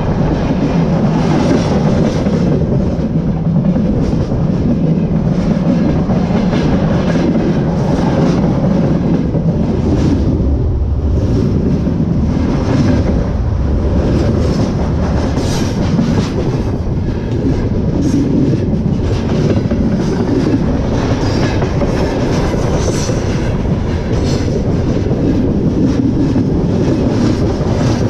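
Freight train wagons rolling directly over the rails at close range, wheels clattering and the cars rumbling steadily.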